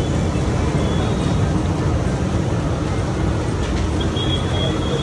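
Samosas deep-frying in a large kadai of bubbling oil: a steady sizzle over a continuous low rumble.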